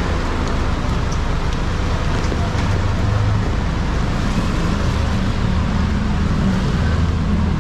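Street traffic in the rain: a nearby vehicle engine running with a steady low drone, over a constant hiss of rain and wet road noise.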